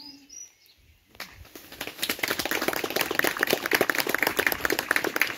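A sung note ends, and after about a second's pause an audience starts clapping. The applause builds up and carries on steadily.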